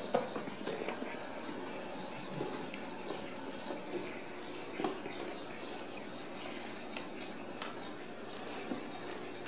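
Kittens' paws and claws scuffling and clicking on a tiled floor and a cardboard scratcher: light, irregular ticks and a few small knocks over a steady hiss.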